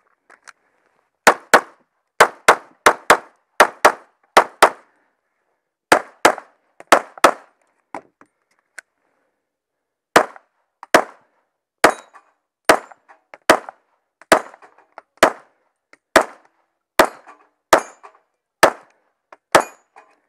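Glock 17 9mm pistol fired fast: about seven quick pairs of shots, a pause of a couple of seconds, then a steady string of about a dozen single shots roughly one a second.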